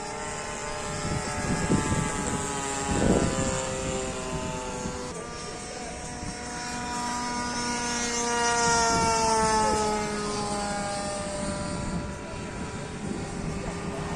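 Radio-controlled model warplane's engine and propeller droning in flight. It grows louder about eight seconds in, then drops in pitch as the plane passes by.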